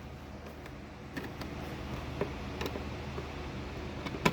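Light clicks and taps of small items being handled and set down on fridge shelves, with one sharper click near the end, over a steady low hum.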